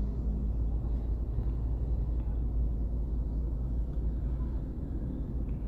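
Steady low road and engine rumble inside the cabin of a Chevrolet Onix turbo, with no distinct suspension knocks.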